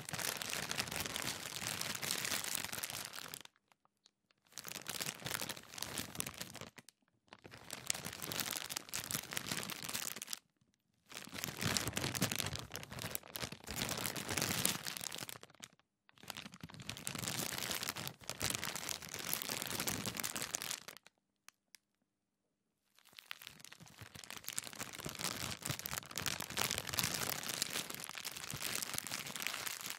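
Plastic bag being handled and crumpled, crinkling and rustling in six bouts of a few seconds each, with short pauses between them.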